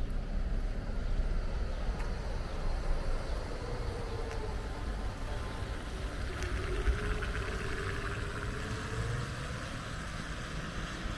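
City street traffic: a motor vehicle passes, its faint engine hum dipping and rising in pitch over several seconds while tyre hiss swells in the second half, over a steady low rumble.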